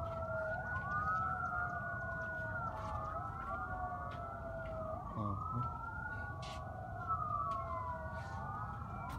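Several emergency-vehicle sirens wailing at once, their rising and falling tones overlapping. They are vehicles responding code 3, with lights and sirens.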